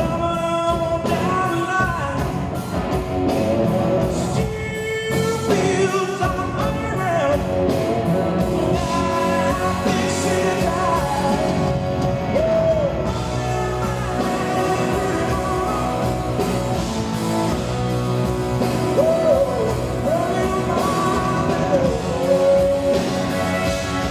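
Live blues-rock band: a male lead singer holding long notes with vibrato over electric guitar through Marshall amplifiers, bass and drums.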